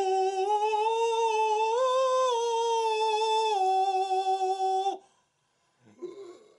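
A man's voice holding one long hummed note with a clean, steady tone, drifting slightly up in pitch and then stepping down before cutting off abruptly about five seconds in.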